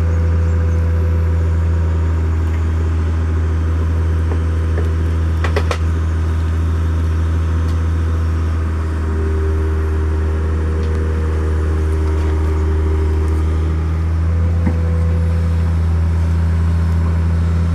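Excavator's diesel engine running steadily at working revs while it strains to pull a firmly stuck stake, with one sharp metallic clank about five and a half seconds in.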